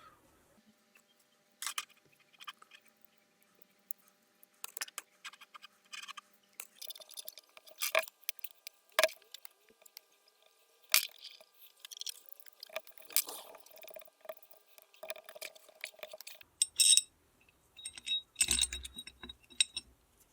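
Small metal parts and tools clinking and tapping during hand work on a diesel injection pump, in scattered irregular clicks, with a few louder ringing metallic clinks near the end.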